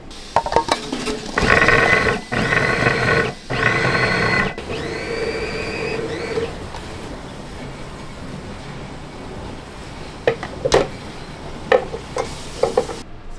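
Electric food processor mincing onion: the motor runs in three short pulses, then a longer run that rises in pitch and holds before stopping. A few sharp clicks and knocks near the end.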